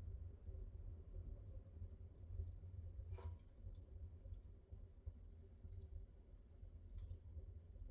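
Wood fire crackling faintly in a fireplace: scattered small pops and clicks, the loudest about three seconds in and another near seven seconds, over a low steady rumble.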